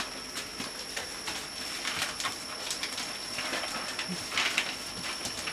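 Newspaper crackling and rustling under the paws of cocker spaniel puppies scrambling about on a paper-covered floor, in short irregular crackles.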